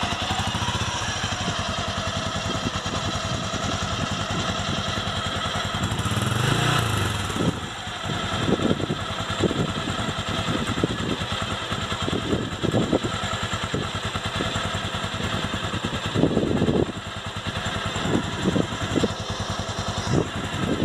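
Honda XBR 500's single-cylinder four-stroke engine idling, freshly running again after a carburettor clean and rebuild. It is revved briefly about six to seven seconds in, then settles back to idle with a few irregular knocks.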